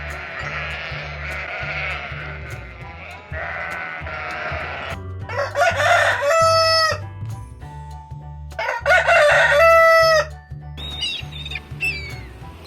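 A rooster crowing twice, each crow a long held call that drops in pitch at the end, over background music with a steady low beat. Before the crows, an animal's wavering call; near the end, a few short bird chirps.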